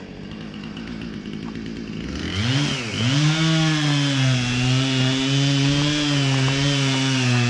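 Two-stroke chainsaw throttled up about two seconds in, with a quick rev and dip, then held at steady high revs while cutting wood.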